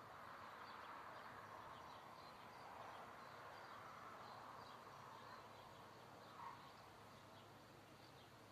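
Faint outdoor background hum with small scattered bird chirps.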